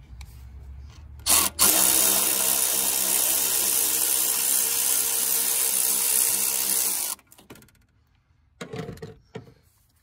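Milwaukee cordless electric ratchet running for about five seconds after a short blip, loosening a hose clamp on a charge air pipe, then cutting off abruptly.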